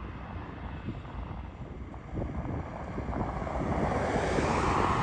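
Road traffic: a steady low rumble of wind on the microphone, with a vehicle passing by, its tyre noise swelling to loudest near the end.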